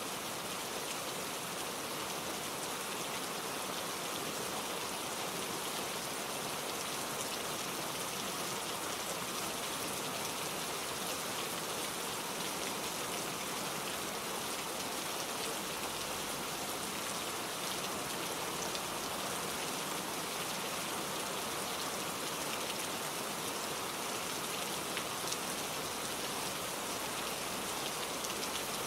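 Steady rain falling: an even hiss with a fine patter of individual drops, unchanging throughout.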